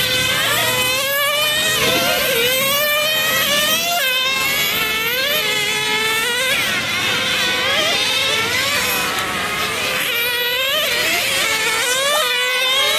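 Several nitro-powered RC car engines running at a high-pitched buzz. Their pitch repeatedly rises and falls as the cars accelerate, slow for corners and pass one another.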